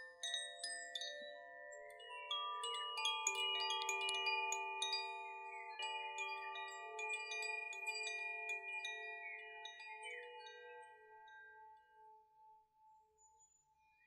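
Two Koshi bamboo wind chimes ringing as their clappers swing and strike the tuned metal rods inside. The overlapping tones are struck most thickly a few seconds in, then ring on and fade away to near quiet by the end. Birds sing briefly near the start and again about ten seconds in.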